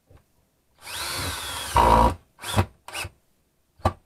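Cordless drill driving screws into wood: one run of about a second and a half whose motor whine rises and then falls, loudest as it finishes, followed by three short bursts of the trigger.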